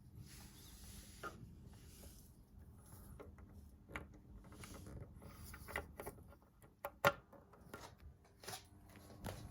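Faint scratchy rubbing and scattered clicks from handling and plugging in a stereo trigger cable, with one sharp click about seven seconds in.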